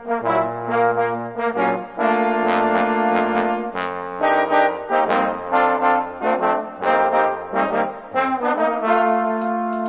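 British-style brass band playing a lively passage in full ensemble, with short, quick note attacks over a low bass line, settling into held notes near the end.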